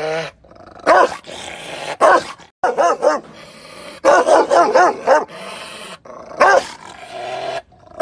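Rottweiler barking aggressively in quick clusters of loud barks, with short pauses between them.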